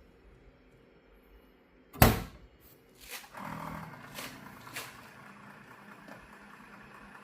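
The Cuckoo robot vacuum's base station is washing its mop pads. About two seconds in there is a single loud clunk, followed by clicks and its motor and pump starting up and running steadily.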